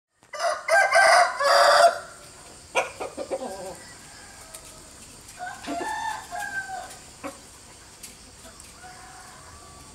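A loud animal call lasting about a second and a half near the start, followed by a few shorter, quieter calls.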